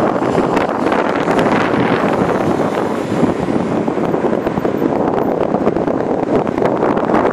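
Steady road and engine noise of a moving car heard from inside the cabin, with wind buffeting the microphone.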